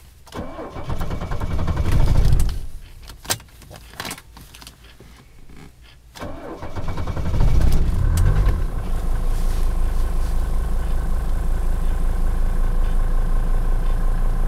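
Mercedes-Benz 300D's OM617 five-cylinder diesel being cold-started at −8°F without its block heater. It cranks for about two seconds and does not catch. About six seconds in it cranks again, catches and settles into a steady, pulsing idle.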